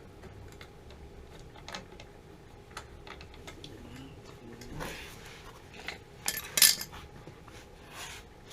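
Metal parts and tools clinking and clicking as the main burner gas line is fitted to a water heater's new gas control valve, with a louder metallic clatter a little past the middle.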